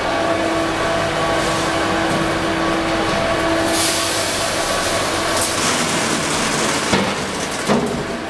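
Colour sorting machine for plastic flakes running: a steady mechanical hum and hiss with a constant low tone, and two brief louder rushes of hiss near the middle.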